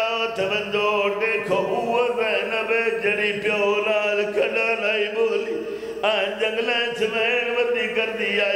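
A man chanting a Punjabi masaib elegy for the martyrs of Karbala in long, wavering melodic lines over a microphone, with a short break about six seconds in before the next phrase.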